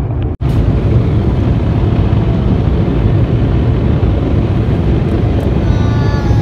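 Automatic car wash machinery running, a loud, steady roar heard from inside the car's cabin. It cuts out for an instant about half a second in.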